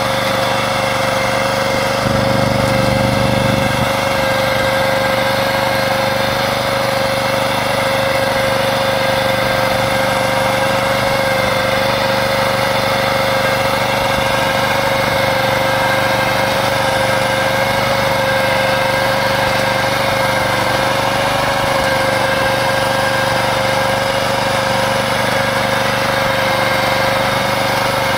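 Engine of a Pasquali XB40 two-wheeled tractor running steadily at one even pitch while it drives a rotary plough through the soil. There is a brief deeper swell about two seconds in.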